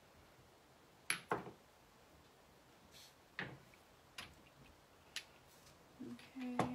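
Handling sounds from small objects being picked up and set down: a few scattered light clicks and knocks, spaced a second or more apart, with a short low hum near the end.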